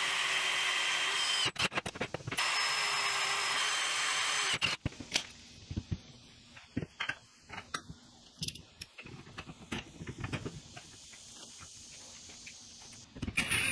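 A power drill boring a twist bit into a steel plate, running steadily with a whine in two bursts of about two seconds each. After that come scattered clicks and knocks.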